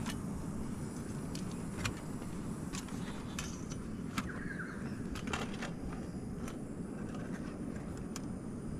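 Scattered light clicks and clinks of camp cooking gear being handled, over a steady low rumble.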